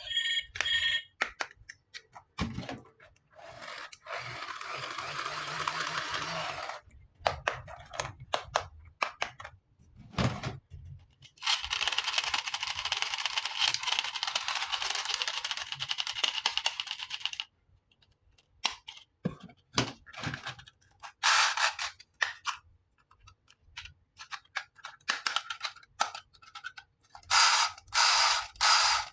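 Plastic toys and packaging handled during an unboxing: scattered clicks and taps, with two long stretches of scratchy noise, the second lasting about six seconds.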